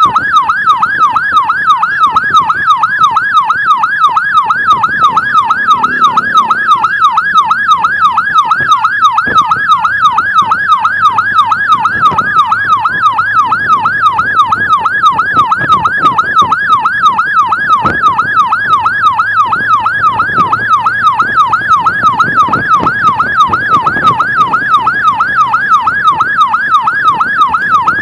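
Electronic emergency-vehicle siren on a fast yelp setting, its pitch sweeping rapidly up and down about three times a second without a break, over faint vehicle road noise.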